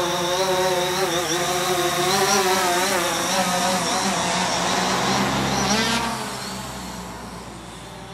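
DJI Phantom quadcopter's propellers humming as it hovers close by, the pitch wavering as the motors adjust. About six seconds in the pitch sweeps and the sound drops away quickly as the drone climbs off.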